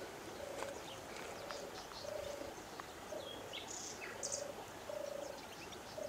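Birds calling: a short, even low note repeated about once a second, over scattered short high chirps and twitters from small birds.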